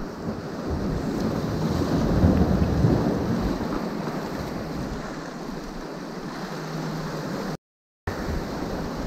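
Ocean swells washing and breaking against the jetty's rock boulders, with wind buffeting the microphone; the wash swells up about two to three seconds in. The sound cuts out completely for a moment near the end.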